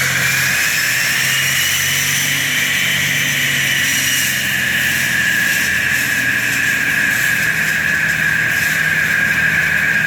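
Concrete floor saw running steadily, its engine humming under a high whine from the spinning diamond blade.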